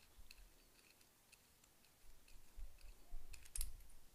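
Faint ticks and small clicks of a rebuildable tank atomizer's stainless steel and Pyrex glass parts being handled and taken apart as the glass tube is slid off the base. Handling bumps start about two seconds in, with the sharpest click a little after three and a half seconds.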